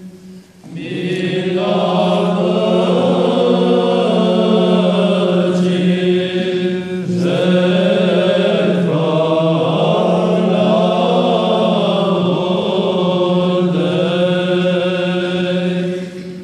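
Orthodox Byzantine chant responses sung by a choir over a loud, steady ison, a held drone note sung close to the microphone beneath the moving melody. The singing starts about a second in and stops near the end.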